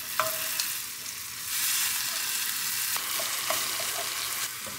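Ground bison frying and sizzling in a pan, stirred and broken up with a slotted spatula that scrapes and taps the pan now and then. The sizzle gets a little louder about one and a half seconds in.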